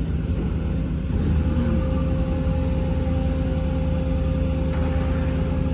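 Hydraulic wheel lift on a Century rollback tow truck being raised and tucked up. Under it, the truck's 6.6 L Duramax diesel runs with a steady hum from the hydraulic drive, which shifts a little about a second and a half in.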